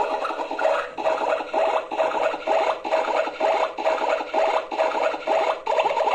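Rhythmic rasping, rubbing strokes, a little over two a second, turning into a steadier rasp near the end.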